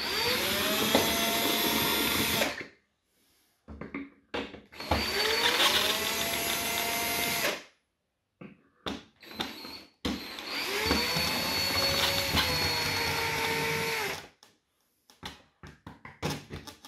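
Cordless drill-driver with a long bit unscrewing screws from deep inside a polystyrene box: the motor spins up with a rising whine and runs steadily in three bursts of about two to four seconds each. Small clicks and handling knocks fall in the pauses between bursts.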